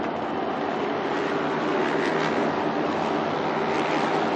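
A pack of Supersport 300 racing motorcycles running hard at once, the small engines blending into one steady, dense drone that grows slowly louder.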